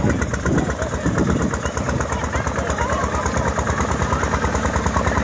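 Single-cylinder diesel engine of a two-wheel walking tractor running with a rapid, even chugging beat while pulling a loaded trailer through floodwater.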